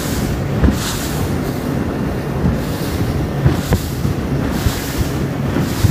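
Ballistic 6M RIB running at high speed: a steady outboard engine drone under rushing wind noise on the microphone, with a few short knocks as the hull hits the waves.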